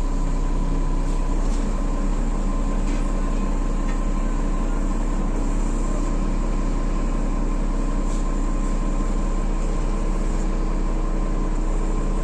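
A heavy diesel engine running steadily at a constant speed, with a few faint clicks over it.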